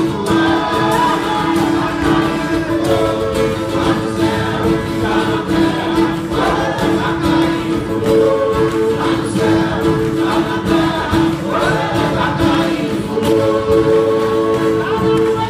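Live folk music: many acoustic guitars strumming a steady rhythm under voices singing together.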